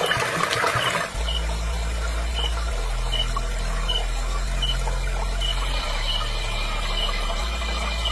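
Water splashing for about the first second, then a steady low hum with a short high squeak repeating about every three-quarters of a second, as from a small water-driven turbine model turning.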